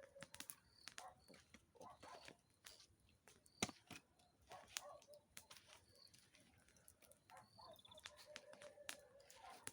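Faint crackling and popping of burning firewood in a campfire: irregular sharp snaps, one louder pop a little past the middle. A faint steady tone sounds near the start and again in the last couple of seconds.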